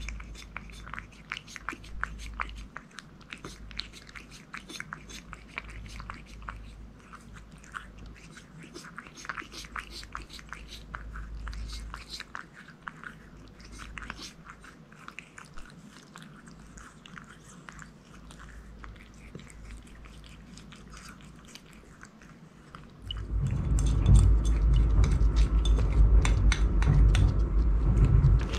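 A cat eating from a bowl close to the microphone: a quick run of small wet clicks from chewing and lapping. About 23 seconds in, a much louder rumbling and rubbing noise right against the microphone suddenly takes over.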